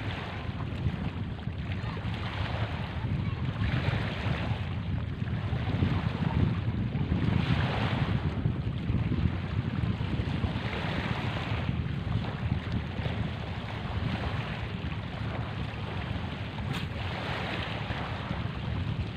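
Small waves washing on a stony shore, the wash swelling and fading every two or three seconds, over a steady rumble of wind on the microphone.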